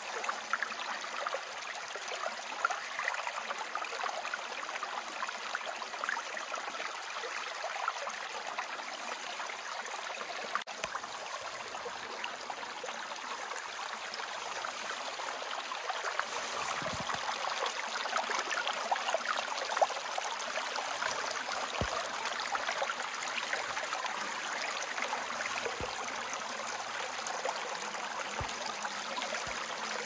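Shallow forest stream flowing over rocks: a steady babbling and trickling rush of water.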